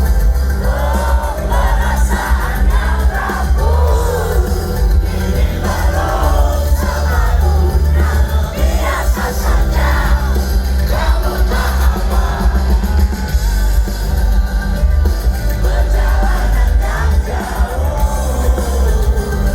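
Loud live concert music with a heavy bass and a singing voice, with crowd noise from the audience.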